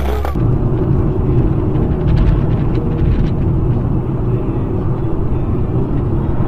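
Car driving on a snowy highway, heard from inside the cabin: a steady low rumble of engine and tyre noise, with a few faint ticks about two to three seconds in.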